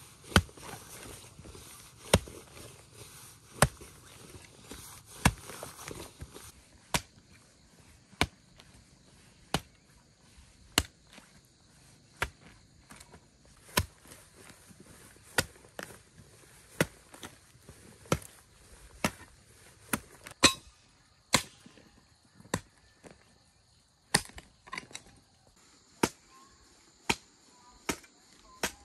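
A steady series of sharp strikes from a hand tool, about one every second and a half, as in chopping. Insects buzz faintly near the end.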